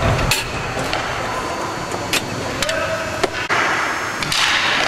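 Hockey game play in an indoor rink: scattered sharp clacks of sticks and puck striking the playing surface and boards over rink ambience, with a rise of hissy noise near the end.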